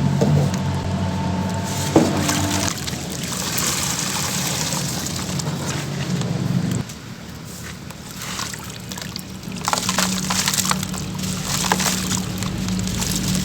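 Crumbled charcoal being poured, a gritty trickling hiss full of small crackles, fading lower for a few seconds in the middle before picking up again.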